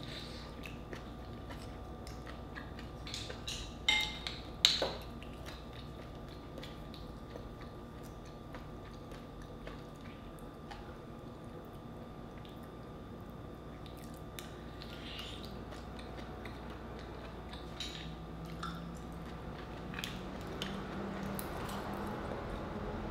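Close-miked chewing and wet mouth sounds of a person eating mussels, with a few short sharp clicks, the loudest about four and five seconds in. A faint steady hum runs underneath.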